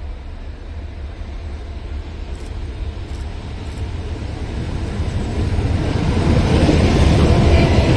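Diesel locomotive hauling passenger coaches, approaching and passing close by. A low engine rumble grows steadily louder, and wheel and rail noise swells in the last few seconds as it draws level.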